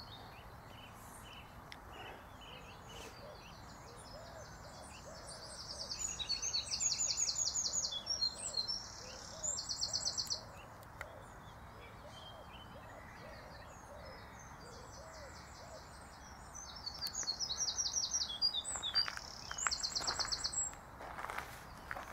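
A songbird singing two bouts of rapid, high-pitched trilled phrases, each a few seconds long and the second some ten seconds after the first, over a faint steady outdoor background. Near the end come a few rustling knocks of the camera being handled.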